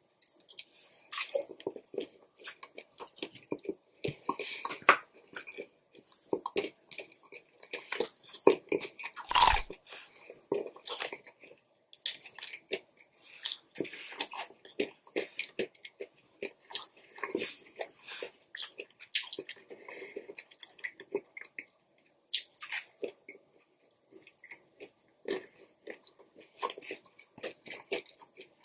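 Close-miked eating sounds: irregular chewing and crunching of Chinese takeout food (fried chicken pieces, broccoli, noodles), with clicks of wooden chopsticks on the wooden board. A louder thump comes about nine and a half seconds in.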